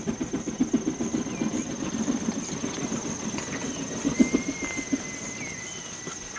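Coffee maker gurgling as it brews: a fast, rhythmic bubbling that weakens after about three seconds and comes back briefly near four seconds, over a thin steady high whine.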